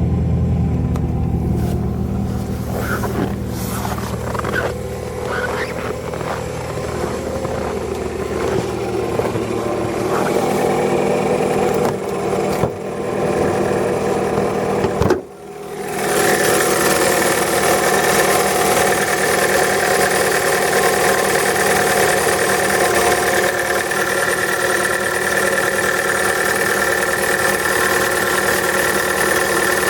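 Chevrolet Cruze engine running steadily on freshly changed oil at 3,400 km. About halfway through, the sound breaks off briefly and comes back brighter, with steady higher whining tones over the engine.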